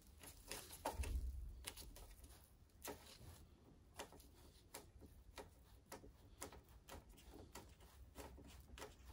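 Faint scattered ticks and crackles of a plastic door-membrane sheet being peeled by hand from its adhesive, with a slightly louder rustle about a second in.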